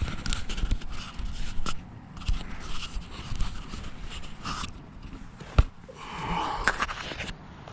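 Handling noise from a plastic-wrapped gasket package: irregular rustling and scraping with scattered clicks, and one sharp knock about five and a half seconds in.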